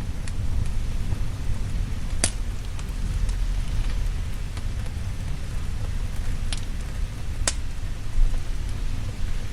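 Steady rain over a deep, low rumble of thunder. Three sharp pops cut through, about two, six and a half and seven and a half seconds in.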